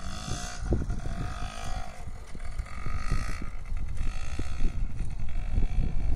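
A child's mini dirt bike riding over grass, its motor running faintly under heavy wind rumble on the microphone.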